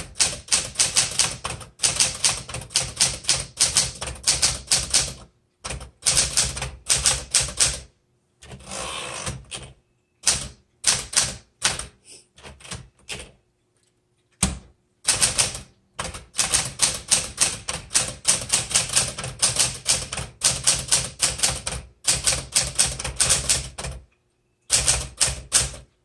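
Smith Corona Classic 12 manual portable typewriter being typed on: runs of quick, sharp keystroke clacks broken by short pauses, with a longer rattling sweep about nine seconds in.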